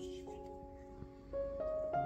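Background music: an instrumental melody of held notes stepping from pitch to pitch, quieter about a second in and louder again near the end.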